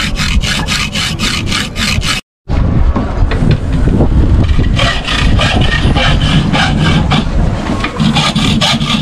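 Hacksaw cutting through a metal piece clamped in a vise, in quick regular strokes about three a second, over a low steady rumble. The sound drops out for a moment about two seconds in, then the strokes resume.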